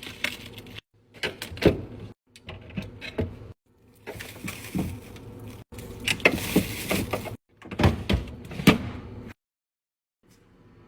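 Restocking handling sounds: knocks, clacks and rustles of containers and packages being set down and moved, perhaps with a fridge door or drawer sliding. The sound comes in several short stretches that each stop abruptly, with a silent gap near the end.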